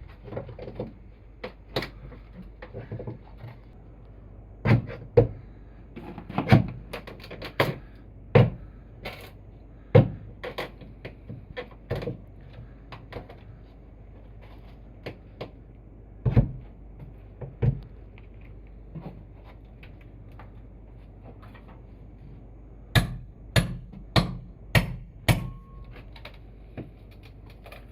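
Irregular knocks and thumps, scattered and uneven, with a quicker run of five or six louder ones near the end.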